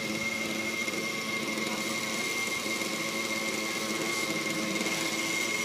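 YS 120 glow engine of a 700-size RC helicopter running steadily at idle, with a constant high whine over a lower hum.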